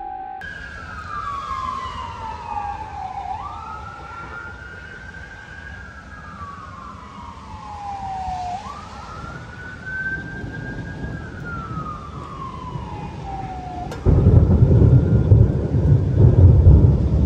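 Ambulance siren wailing, its pitch sliding slowly down and climbing back up in long sweeps, about three times. About fourteen seconds in, a sudden low rumble of thunder sets in and becomes the loudest sound.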